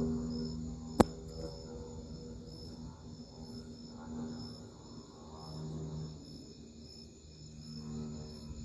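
Crickets chirping steadily in a pulsing rhythm, over low droning music that swells and fades. A single sharp click about a second in.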